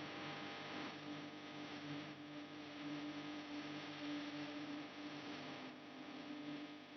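Faint steady electrical hum with a light hiss, which cuts off near the end.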